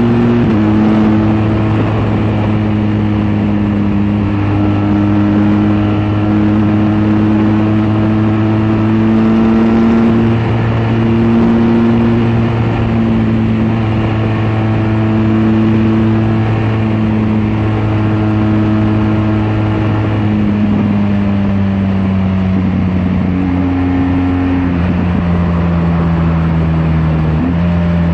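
BMW R1200GS LC's boxer-twin engine pulling at highway speed, its note climbing slowly as the bike speeds up, then dropping in two steps near the end as the rider eases off, over steady wind and road rush.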